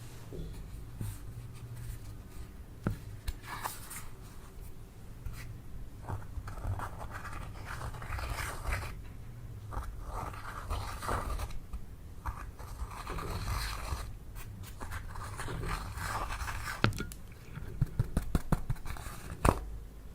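Slime being handled, with irregular scraping and rustling and a run of sharp clicks and snaps near the end.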